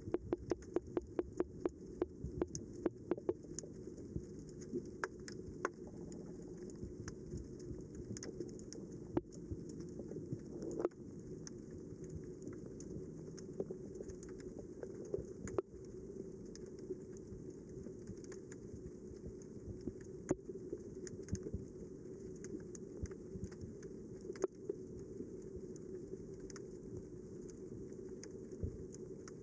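Underwater sound heard through a submerged camera: a steady muffled rumble with sharp clicks. The clicks come in a quick run of about four or five a second over the first three seconds, then singly every few seconds.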